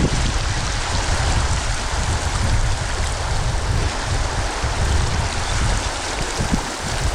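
A mountain stream's water rushing steadily, with a gusty low rumble of wind on the microphone.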